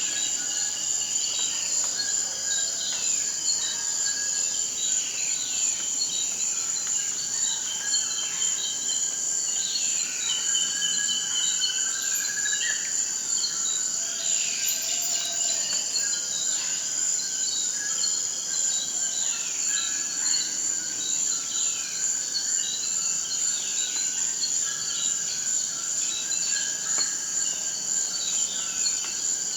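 Rainforest ambience: a steady, high-pitched insect chorus, with many short falling calls scattered over it throughout.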